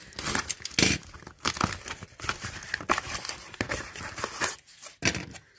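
Packaging crinkling and rustling as items are handled and taken out of a box, with scattered irregular taps and scrapes.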